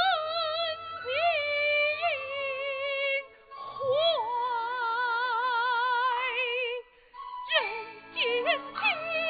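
Kunqu opera xiaosheng (young male role) singing a slow aria in a high voice, with long wavering held notes and sliding ornaments, over instrumental accompaniment. The singing breaks off briefly about three seconds in and again around seven seconds, with the accompaniment growing fuller near the end.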